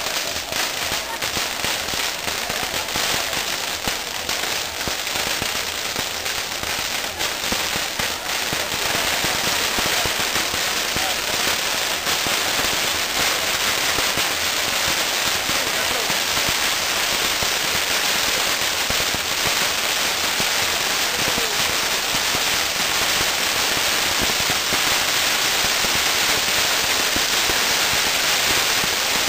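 Maltese ground fireworks (nar tal-art) burning on star-shaped wheel frames: a dense, continuous crackle and hiss of sparks. It grows louder about nine seconds in.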